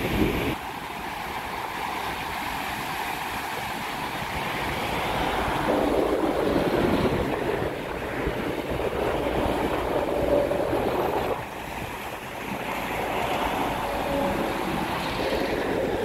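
Heavy typhoon-driven surf breaking and washing over a rocky cobble shore, a continuous rush of foaming water. It swells louder about five seconds in and again near the end.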